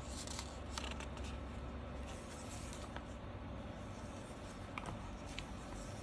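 Paper pages of a handmade journal being turned and handled: soft rustling with a few brief, crisp flicks of paper.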